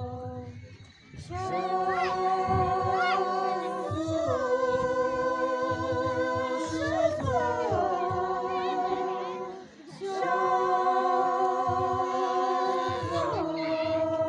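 Small group of singers, mostly women, singing a Naga folk song together without accompaniment, in long held notes. The phrases break off briefly for breath about a second in and again near ten seconds in.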